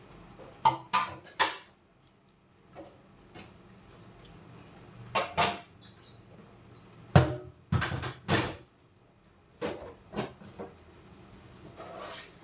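Dishes and a metal tray being handled and set down on a tiled kitchen counter: sharp knocks and clatters in small groups of two to four, a few seconds apart.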